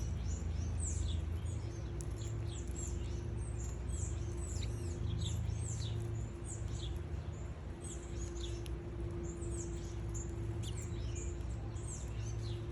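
Small birds chirping: many short, high, down-slurred chirps in quick succession, over a steady low hum.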